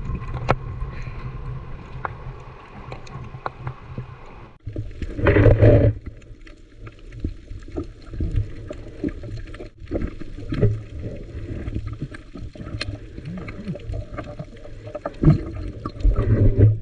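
Sea water sloshing and gurgling close to the microphone, with louder splashes about five seconds in and again near the end.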